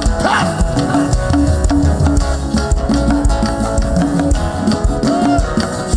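Live worship band playing an up-tempo groove, with drums and bass driving a steady beat and a short repeated bass or keyboard note, between sung chant lines.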